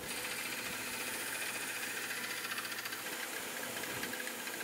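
Small bench belt grinder running steadily, its motor humming under the hiss of a copper-and-steel knife blade being ground against the moving belt.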